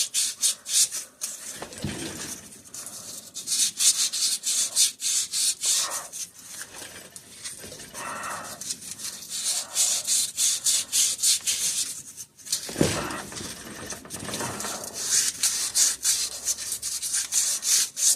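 Sandpaper rubbed quickly back and forth on the steel crankshaft of a Kohler opposed-twin engine, at the snap-ring groove. The scratchy strokes come in several bursts with short pauses between them, easing the gear's way off the crank.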